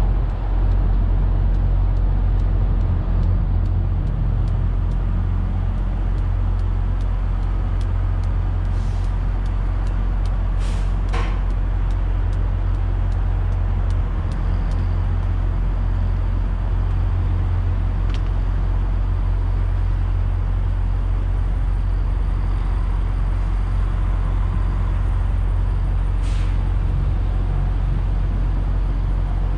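Steady low mechanical rumble, with a couple of brief sharp sounds about eleven seconds in and one more near the end.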